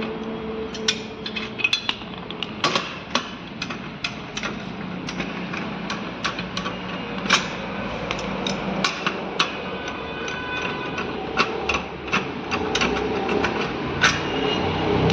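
Wheel nuts on a Maruti Swift's rear wheel being undone with a 19 mm socket wrench and the wheel taken off: irregular sharp metallic clicks and knocks of the tool, nuts and wheel.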